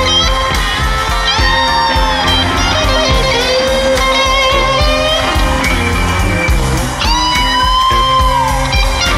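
Live electric blues band: a lead electric guitar, a Stratocaster-style solid-body, plays a solo with long bent notes held with vibrato, the clearest about a second in and again about seven seconds in, over bass and drums.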